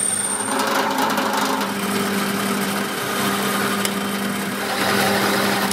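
Metal lathe running with its cutting tool machining a spinning metal axle piece: a steady hum under a rough, hissing cutting noise.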